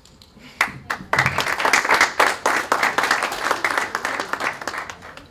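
Audience applauding: a few single claps, then dense clapping from about a second in that thins out and stops near the end.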